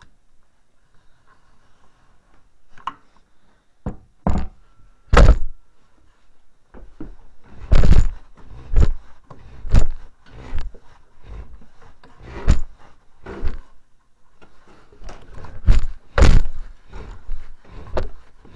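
A series of about fifteen heavy thunks and knocks, irregularly spaced, starting about four seconds in after a quiet start.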